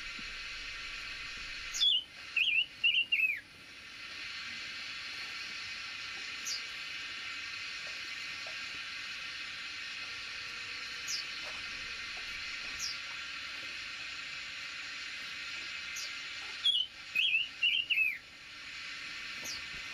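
A songbird sings two short phrases of four or five quick, falling notes, about fifteen seconds apart, with faint single chirps in between, over a steady hiss.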